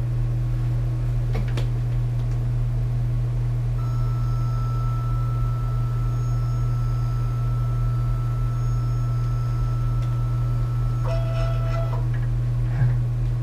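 Kudo3D Titan 1 DLP resin 3D printer running mid-print: a steady low hum, with a thin high whine joining at about four seconds and stopping near the end. A single click comes about a second and a half in, and a short rustle near the end.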